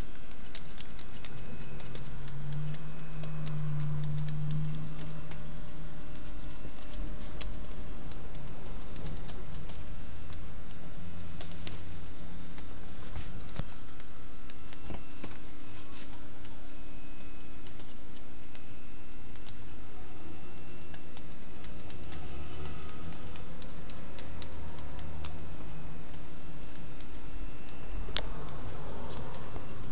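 Barber's scissors snipping hair in runs of quick small clicks, cutting over a comb.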